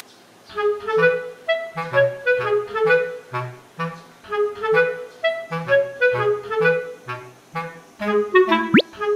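Light, bouncy background music: a woodwind-like melody over a bass line that steps along in a steady rhythm. Near the end a quick rising whistle-like sweep cuts across it.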